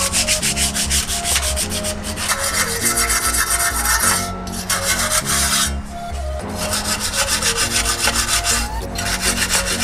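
Sandpaper rubbed by hand along a rusty steel ATV exhaust pipe, in fast back-and-forth strokes, several a second, in runs of one to two seconds with short breaks between: rust and caked mud being sanded off the pipe.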